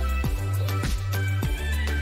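Background music with a steady beat of low drum strokes, about three a second, over a deep bass.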